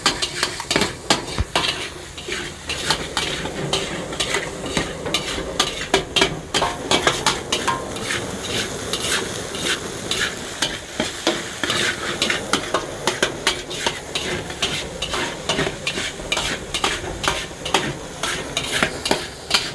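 Fried rice stir-frying and sizzling in a pan, with a spatula scraping and clacking against the pan many times as it is tossed.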